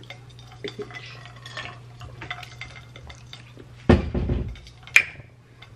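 Ice cubes clicking lightly against a stemmed wine glass as it is lifted and sipped. At about four seconds there is a short, low voice sound, and about a second later a sharp glass clink with a brief ring.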